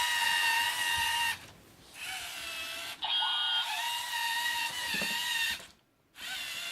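Lego Mindstorms robot's electric motors whining as it drives its tracks, in three runs with short pauses between; the pitch rises as each run starts.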